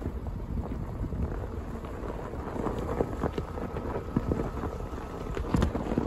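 Wind buffeting the microphone, a steady low rumble with a few sharp knocks, the loudest near the end.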